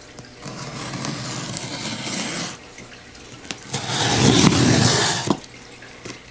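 Scissors slicing along packing tape on a cardboard shipping box: two long scraping rasps, the second louder and ending in a sharp click.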